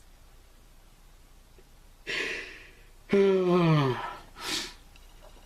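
A person's sharp breath, then a sudden low drawn-out sound whose pitch falls steadily for about a second, then a breath out.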